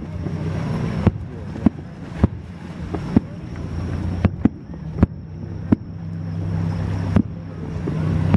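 Aerial fireworks shells bursting: about ten sharp bangs at uneven intervals of half a second to a second and a half, over a steady low hum.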